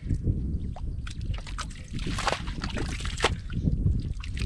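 Muddy water sloshing and splashing as hands and a small basket scoop through a shallow mud pool, with a few sharper wet splashes about two and three seconds in.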